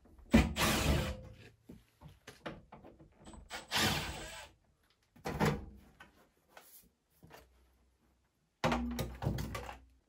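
Clunks, knocks and small clicks from the sheet-metal casing of a Rinnai tankless gas water heater as it is opened up to reach the control board. A few louder clatters, with light ticks and pauses between them.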